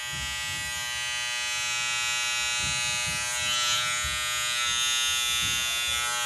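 Electric hair clipper buzzing steadily while trimming the hairline at the back of the neck, briefly growing louder and rougher about three and a half seconds in.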